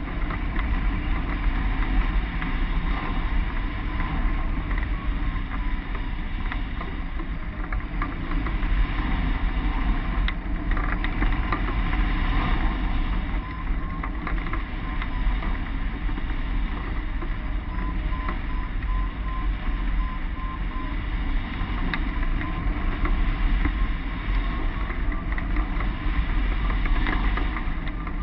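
Wind noise from a hang glider in flight: a steady rush of airflow with a heavy low rumble buffeting the glider-mounted camera's microphone, and faint steady tones above it.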